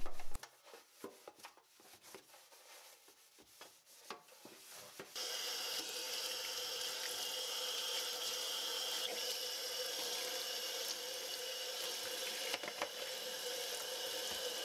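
Faint scrubbing and light knocks in a stainless steel sink, then about five seconds in the tap is turned on and water runs steadily into the steel sink.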